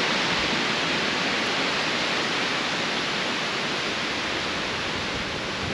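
Wind rushing through tall spruce and aspen trees ahead of a storm: a steady, even hiss that eases slightly toward the end.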